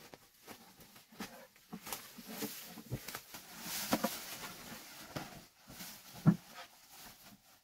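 Leaves and branches rustling and swishing, with dry twigs crackling and snapping underfoot, as someone pushes through dense undergrowth on foot. A louder thump comes a little after six seconds in.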